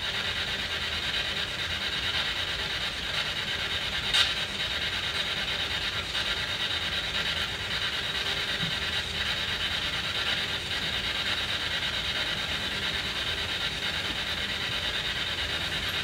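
SB7 spirit box sweeping through radio frequencies, giving a steady hiss of radio static with faint choppy flickers as it jumps between stations. One sharp click about four seconds in.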